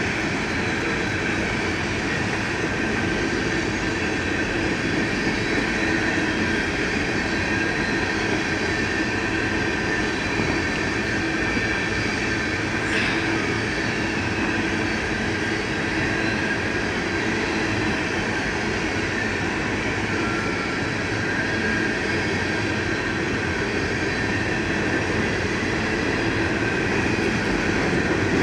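Freight cars of a BNSF coal train rolling steadily past on the rails, with a faint high squeal of wheels against the rail running through it.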